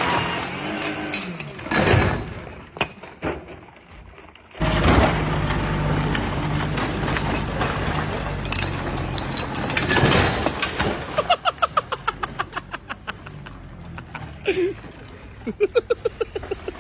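Renault Clio engine revving hard as the car drives forward against a chain fastened to the engine. There is a sudden loud surge about four and a half seconds in, then a peak near ten seconds as the engine is torn out of its bay, after which the engine noise dies away.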